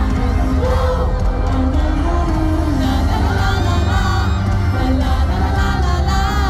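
Live K-pop performance: a male singer singing into a microphone over a loud backing track with heavy bass.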